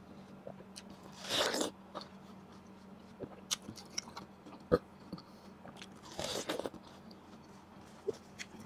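Ripe watermelon being eaten close to the microphone: two juicy, crunching bites, about a second and a half in and again about six seconds in, with wet chewing clicks between them.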